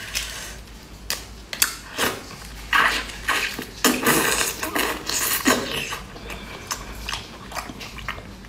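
Close-miked eating of raw, sauce-marinated mantis shrimp: wet sucking and slurping of the meat from the shell, with chewing and small shell clicks in irregular bursts, busiest in the middle seconds.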